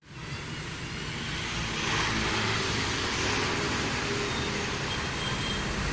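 Road traffic noise: a steady mix of vehicle engine rumble and tyre noise passing by.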